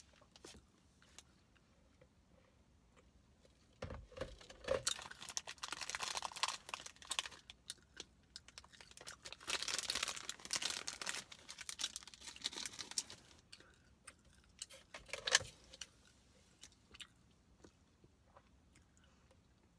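Crinkling and rustling of a small clear plastic packet handled in the hands, in two spells of a few seconds each, followed by a few sharp clicks.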